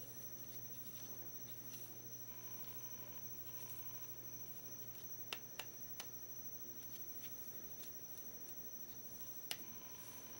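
Faint steady hiss with a constant high-pitched whine, broken by a few light clicks: three in quick succession about five to six seconds in and one more near the end, from handling the plastic knitting loom.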